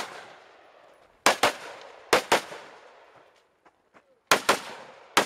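Gunshots fired in quick pairs, about 0.2 s apart, at several targets in turn. Each sharp crack trails off in an echo.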